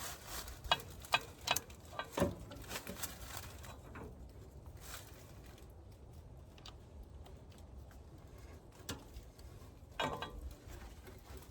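Faint scattered metallic clicks and knocks as hydraulic hose couplings and hitch parts are handled while a backhoe is hooked to a tractor. Most of them fall in the first few seconds, with a short cluster about ten seconds in.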